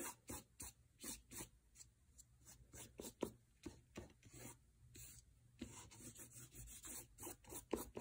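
Fingertips rubbing washable finger paint across paper: faint, repeated short scratchy strokes, several a second.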